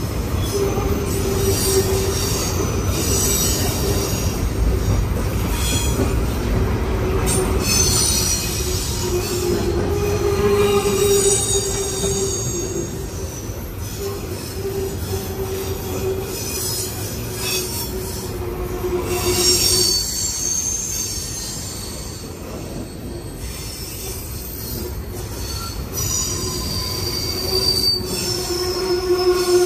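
Covered hopper cars of a freight train rolling past, their steel wheels squealing in several high, wavering tones over a steady rumble.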